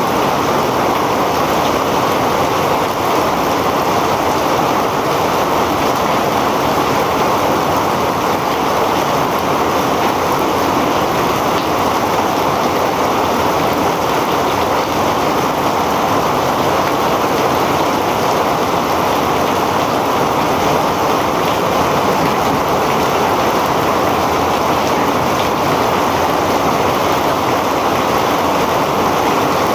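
Heavy rain pouring steadily, a dense unbroken rush of water with no single drops or gusts standing out.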